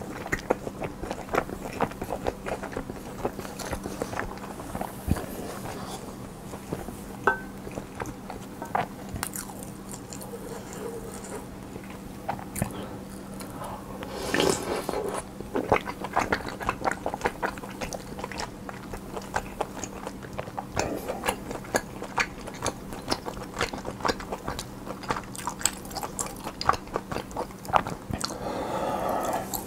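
A person biting and chewing food close to the microphone: repeated crunchy bites and wet chewing, with a louder wet, smacking stretch about halfway through.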